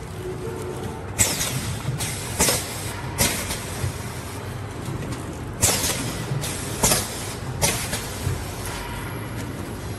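Automatic tray film sealing machine running with a steady hum, broken about seven times by short sharp hisses and clacks as its pneumatic sealing presses cycle.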